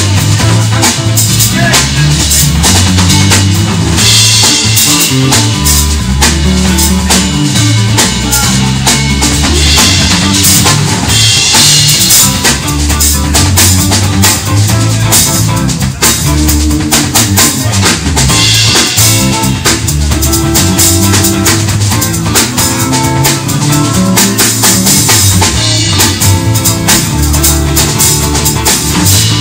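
Live band music driven by a full drum kit, with kick drum, snare and rimshots, over a moving bass line. Bright cymbal washes come in a few times.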